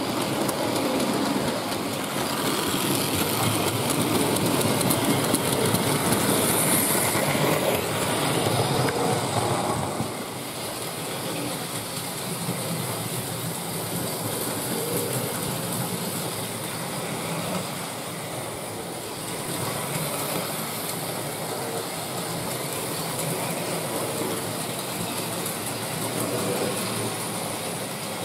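Hornby Dublo three-rail electric model train, a locomotive hauling a rake of tank wagons, running steadily over loose-laid tinplate track. The sound is louder for the first ten seconds or so while the train passes close by, then quieter as it runs farther off.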